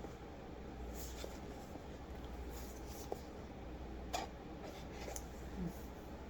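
Faint handling noises: a few light clicks and soft rustles as a cell phone is handled, over a steady low room hum.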